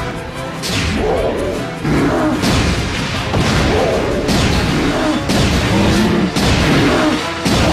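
Cartoon battle soundtrack: dramatic background music with crashes and whooshes of sound effects, coming roughly once a second.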